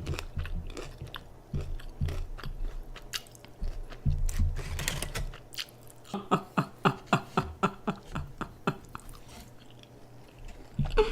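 A person biting into and chewing crunchy fried chicken. There is a burst of crunching about four seconds in, then a quick run of chewing clicks, about four a second.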